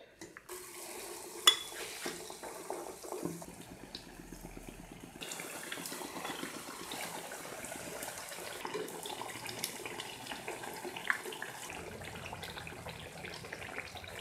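Batter-coated potato slices deep-frying in hot oil in a frying pan: a steady sizzle that grows louder about five seconds in, with a sharp tick about a second and a half in and a few light ticks as slices go in and a utensil touches the pan.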